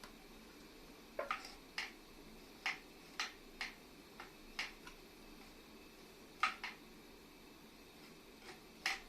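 About a dozen sharp, irregular clicks and knocks, some in quick pairs, as tools and small metal parts are handled while taking apart an air compressor.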